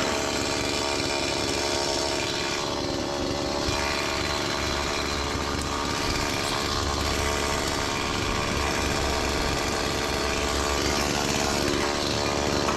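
Chainsaw running steadily, cutting through a tree limb.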